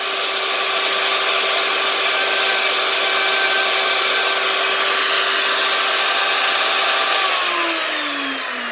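Table-mounted router running at speed, its bearing-guided bit shaping the edge of a small plywood disc turned against it by hand. About seven seconds in the router is switched off and its whine falls steadily in pitch as it winds down.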